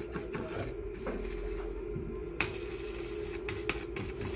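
Construction-site work on steel column formwork: scattered clicks and knocks of metal and wood being handled over a steady machine hum, with one sharp knock about two and a half seconds in.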